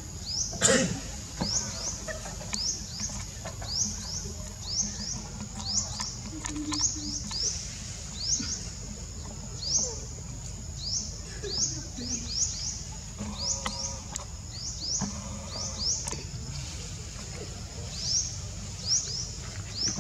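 Forest ambience: a steady high insect drone, with many short, high chirps that fall in pitch, repeating irregularly about once or twice a second.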